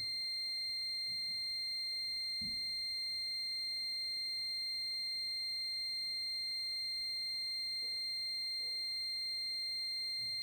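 The buzzer on an NE555 12 V battery charge control board sounding one continuous high-pitched tone, steady and unbroken. A faint low thud about two and a half seconds in.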